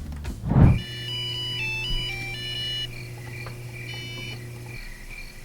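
A vending machine's cashless card reader powering up, with a short low thump, then a jingle of electronic beep tones followed by a steady high beep repeating about twice a second.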